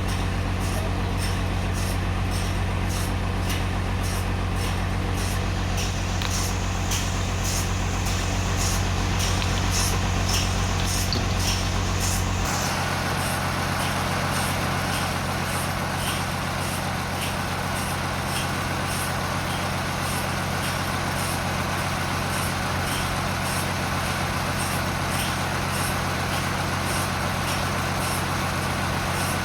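Sawmill machinery running steadily, with an engine hum and a regular high ticking about twice a second. The pitch and weight of the hum change abruptly about twelve seconds in.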